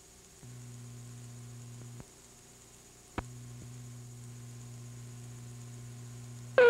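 Steady electrical mains hum on the blank, snowy lead-in of a VHS tape. It drops out for about a second and comes back with a sharp click.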